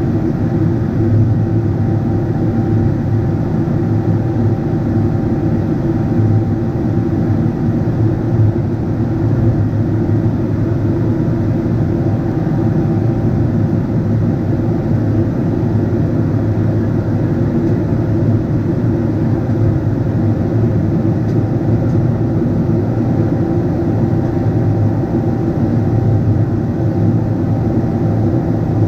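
Steady cabin noise inside a Boeing 777-300ER: the even drone of its GE90-115B turbofan engines and rushing air, with a few faint steady tones above it.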